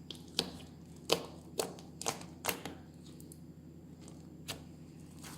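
Slime being squeezed and poked by hand, giving off a run of irregular sharp pops and clicks, clustered in the first three seconds with two more near the end.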